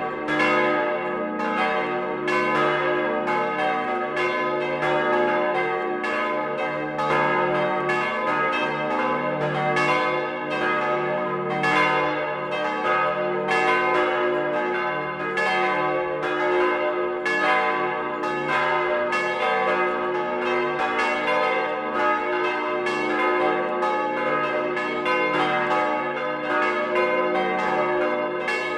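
Several church bells cast in 1949 by Petit & Gebr. Edelbrock, swinging and ringing together in a full peal, their strokes overlapping several times a second under a steady hum of lingering tones. Heard close up from inside the bell chamber.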